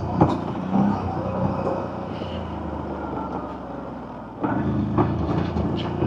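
CFMoto CForce 1000 ATV's V-twin engine running as it rides along a trail, getting louder about four and a half seconds in.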